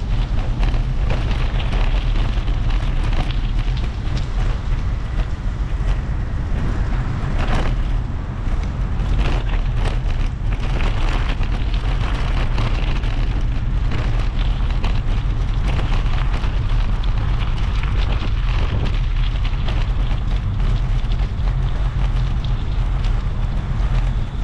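Wind buffeting the bare microphone of a handlebar-mounted GoPro HERO10 on a moving bicycle, a steady low rumble, with frequent irregular knocks and rattles running through it.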